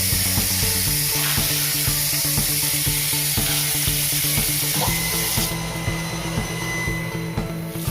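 Background music with a steady beat and held bass notes that change every few seconds, over a steady hiss.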